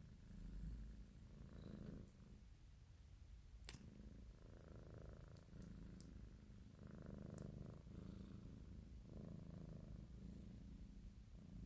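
British Shorthair cat purring faintly, the purr swelling and fading in slow cycles about every two and a half seconds. A single sharp click comes a few seconds in.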